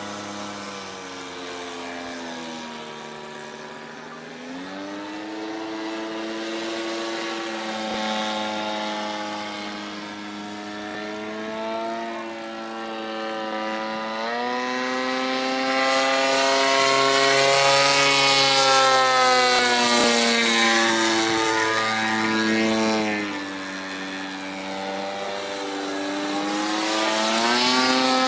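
Twin-cylinder two-stroke petrol engine (DLE 120) and propeller of a giant-scale MX2 RC aerobatic plane in flight, its note rising and falling repeatedly as the plane manoeuvres and passes. It is loudest and highest past the middle and again near the end.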